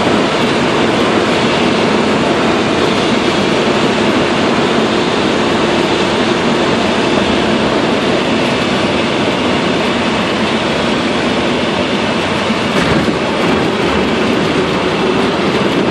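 Light single-engine propeller aircraft heard from inside the cockpit while landing: steady engine, propeller and airflow noise.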